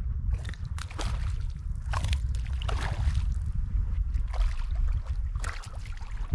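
Wind buffeting the microphone in a steady low rumble, with water sloshing against a bass boat's hull and irregular splashes, the last of them from a hooked fish thrashing at the surface beside the boat near the end.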